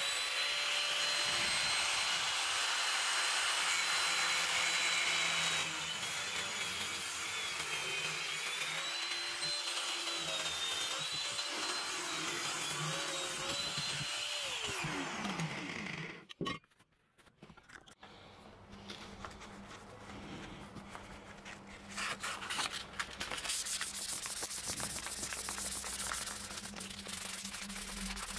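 Angle grinder with a thin cut-off disc cutting through a motorcycle's rusty steel exhaust pipe, its steady whine dipping in pitch as the disc bites and then winding down about fifteen seconds in. After a short pause, gloved hands rub and sand the pipe by hand in irregular scraping strokes.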